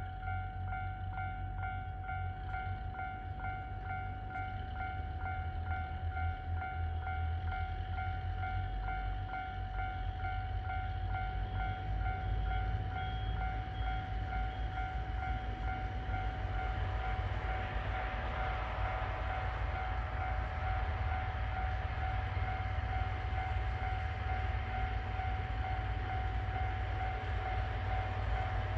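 Train approaching, its running noise growing louder from about halfway. Under it run a steady low rumble and a continuous high ringing tone.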